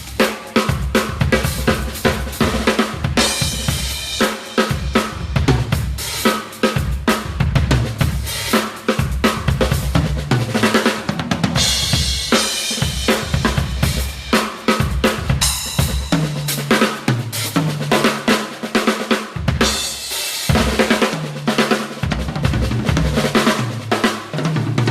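Crush acoustic drum kit played fast and continuously: rapid snare and bass-drum strokes with hi-hat, tom fills stepping down in pitch in the second half, and crash cymbals a few seconds in, around the middle, and again later.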